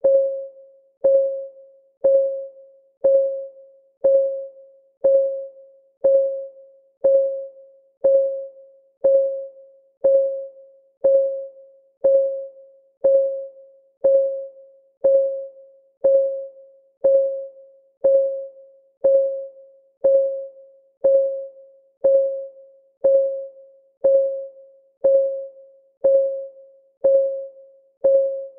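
Countdown timer's ticking sound: one tick every second, each a short click carrying a single mid-pitched tone that rings briefly and fades before the next.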